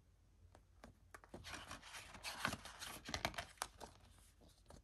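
DVD box set packaging being handled and torn open: a dense rustling tear lasting about two and a half seconds, with light clicks before and after.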